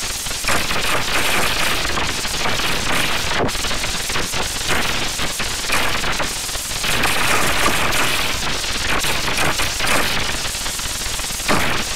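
Loud, harsh crackling noise that runs continuously, dense with rapid snaps.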